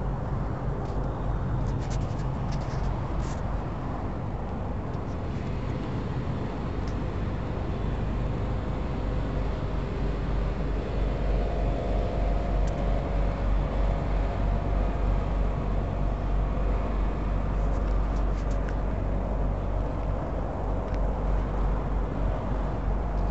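Steady low rumble of vehicle engines and traffic around a truck stop, with a faint steady hum joining about halfway through, and a few light clicks.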